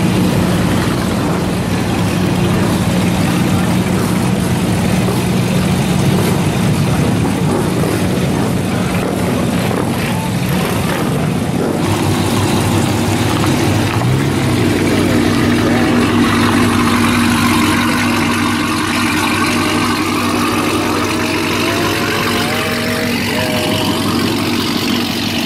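Dodge Charger engines running at low speed as the cars roll past one after another, a steady exhaust note whose pitch changes about halfway through as the next car comes by.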